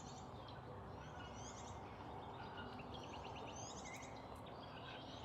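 Faint birdsong: short phrases of quick high notes repeated every second or two, over a steady low outdoor background hum.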